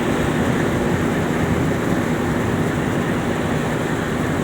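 Steady drone of a tugboat's twin main diesel engines, with a rushing of wind and water over it as the boat turns.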